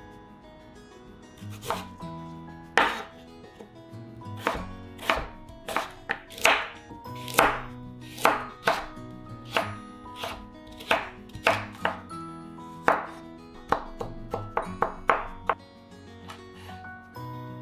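Kitchen knife chopping on a cutting board: a run of about two dozen sharp, irregular strokes that stops about a second before the end.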